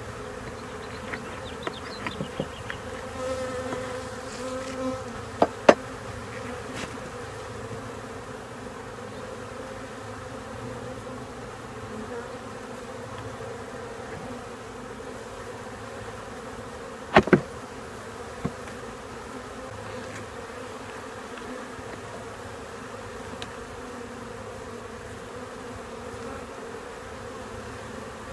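Honeybees buzzing steadily around an open hive. A few sharp knocks and scrapes of wooden frames and hive tool cut through it, loudest about five seconds in and again about seventeen seconds in, as a frame sticky with propolis is worked down into the box.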